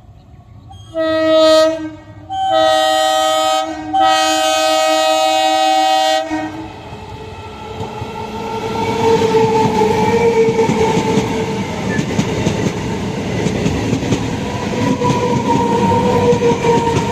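Indian Railways train horn sounding three blasts, short, medium and long. The train then passes close by with a steady rumble of wheels on the rails.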